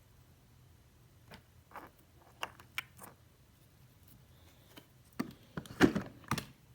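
A spoon clicking and tapping against a container as glitter is scooped out and added to slime: a few light, scattered clicks, then a cluster of louder knocks over about the last second and a half.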